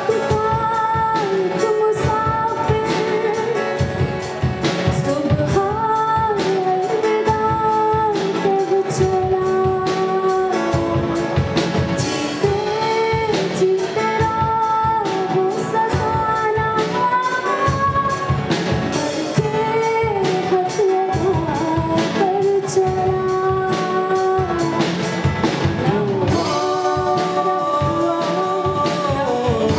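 Live band music: a woman sings a melody into a microphone over two acoustic guitars and a Sonor drum kit keeping a steady beat.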